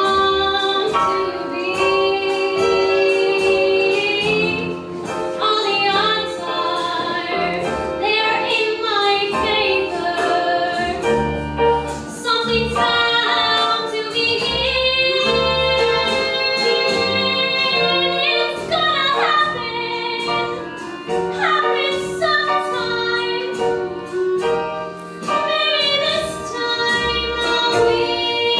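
A young woman singing a ballad solo into a handheld microphone, with long held notes, over an instrumental accompaniment.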